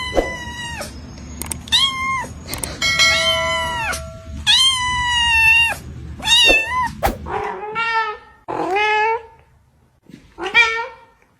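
Cat meowing over and over, about nine drawn-out meows, the later ones lower in pitch, with a few sharp clicks in between.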